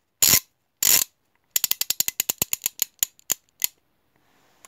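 Logo sound effect of mechanical noises: two short harsh bursts about half a second apart, then a fast run of sharp clicks, about ten a second, that spaces out and stops.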